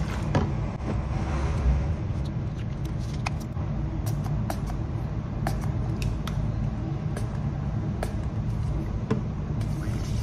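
Small clicks and taps of a plastic dispenser and bottle being handled on a kitchen counter, over a steady low rumble.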